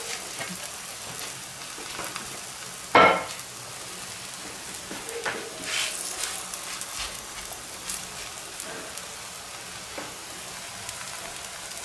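Millet-and-vegetable paratha sizzling steadily on a hot, ghee-greased tava, just laid on the griddle. A single sharp knock about three seconds in is the loudest sound.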